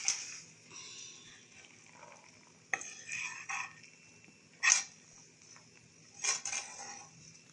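A spoon scraping and clinking against cookware as cooked minced-meat filling is scooped and spread over roqaq pastry sheets: three short scrapes about two seconds apart, the middle one the loudest.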